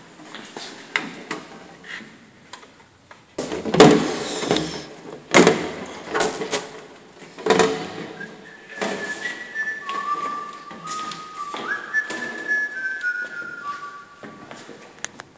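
Knocks and rattles of plastic warning panels being handled and fitted to a rear bike carrier, the loudest a few seconds in. From about halfway through, a person whistles a short tune of held notes that step up and down.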